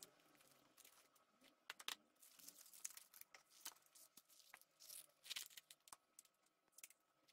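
Faint crinkling and tearing of plastic food packaging, with scattered light clicks of dishes and containers being set down on a table.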